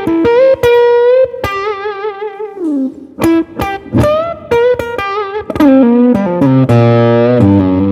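Epiphone "Gold Glory" Les Paul Custom electric guitar with a single Seymour Duncan P-90 pickup, played through a Blackstar combo amp with the guitar's tone knob rolled all the way back for a muffled "woman tone". Single-note lead phrases with wide vibrato and a note sliding down, then a held chord ringing out near the end.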